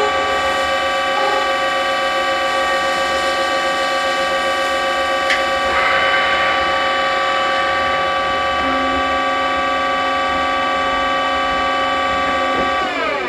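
Mori Seiki TL-1 CNC lathe spindle running at speed with a steady whine of several tones, with a short hiss of coolant spray about six seconds in. Near the end the whine falls in pitch as the spindle winds down.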